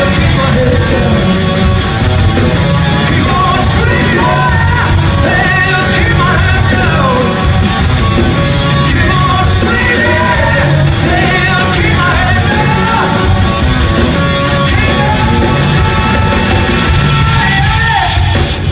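Live rock band playing loud in a large arena: a singer belting and shouting over a steady drum beat and dense band backing, with a short break right at the end.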